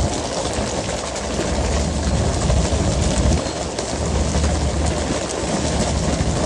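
Fishing boat's engine running with a steady low hum under a constant hiss of rushing water and spray along the hull.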